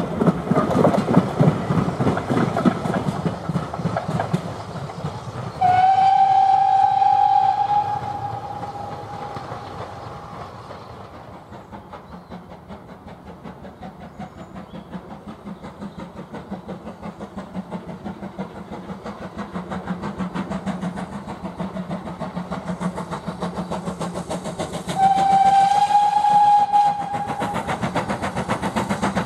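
Steam train running: the coaches clatter away into the distance and a steam whistle gives a blast of a couple of seconds. Then the GWR 5600-class 0-6-2 tank locomotive's exhaust beats grow louder as it approaches, with a second short whistle blast near the end.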